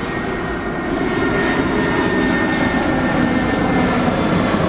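Twin-engine jet airliner passing low overhead: a steady, loud engine rush with a thin high whine running through it, growing a little louder about a second in.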